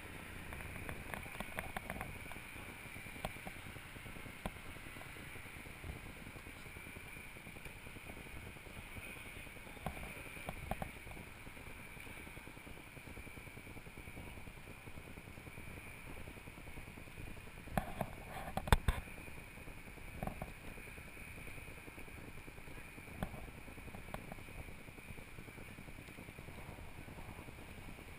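Steady, muffled outdoor background noise with scattered knocks and bumps, and a short cluster of louder knocks about two-thirds of the way through.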